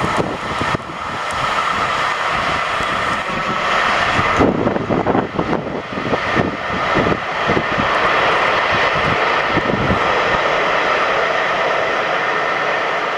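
Freight train of empty stanchion wagons rolling away along the track: a steady rumble and rail noise from the wheels, with irregular low thumps throughout.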